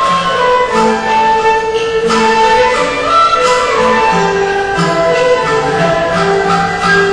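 Instrumental background music: a slow melody of held notes over a sustained accompaniment.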